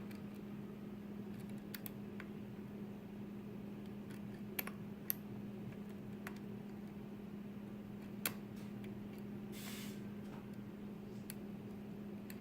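A few sparse, sharp metal clicks of a lock pick working the pins of a pin-tumbler challenge lock under light tension, with a brief scrape near the end, over a steady low hum.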